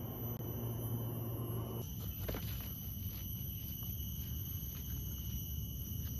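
Steady, high-pitched drone of forest insects. A low hum stops about two seconds in, and faint footsteps on a dirt trail follow.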